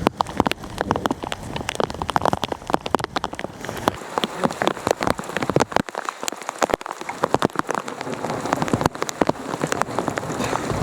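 Heavy thunderstorm rain, with many individual drops striking close to the microphone.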